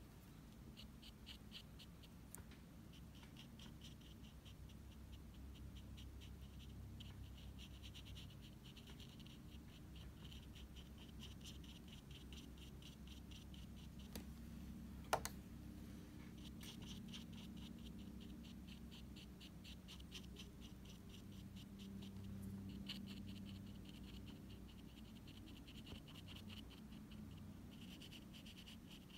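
Faint scratching of a small watercolour brush worked over textured watercolour paper, in runs of quick, fine strokes, with a single click about halfway through.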